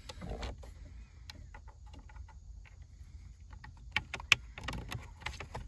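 Small plastic clicks and taps as the bulb socket of a Jeep Wrangler's shifter backlight is handled and pushed into its hole under the shifter bezel, with two sharper clicks about four seconds in, over a low rumble.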